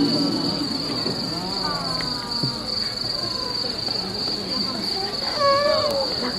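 Insects chirring in one steady, high-pitched trill.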